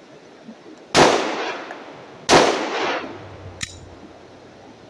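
Two shots from a Smith & Wesson SD9 9mm pistol, about a second and a half apart, each followed by a long echo.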